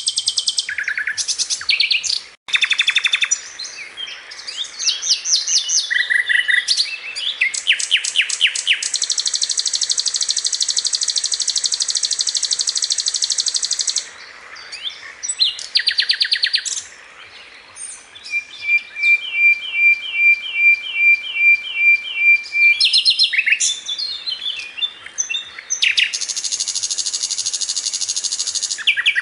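A songbird singing a long, varied, high-pitched song of fast trills and rapid runs of repeated notes, broken by a brief gap about two seconds in.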